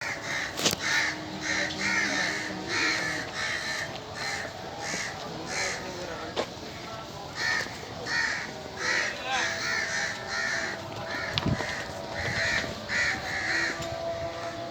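Birds calling over and over, short calls following one another about twice a second, with a sharp click just under a second in and a low thump near the end.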